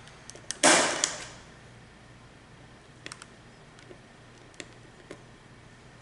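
Impact punch-down tool firing once, a little over half a second in: a loud snap as the blade seats a wire into the keystone jack's insulation-displacement slot and its cut side trims off the excess. A few faint light clicks follow as the tool is lifted and set on the next slot.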